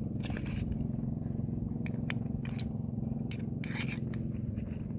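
Sharp metallic clicks and short scrapes of pliers working a hooked minnow lure free from a fish, heard irregularly over a steady low rumble.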